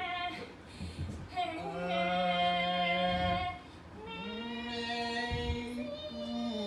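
Singing voices holding two long notes, each about two seconds, with a short break between them.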